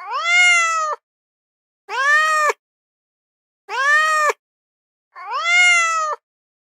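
An animal calling four times, each call a drawn-out pitched cry of just under a second that rises at the start and then holds, with silence between the calls.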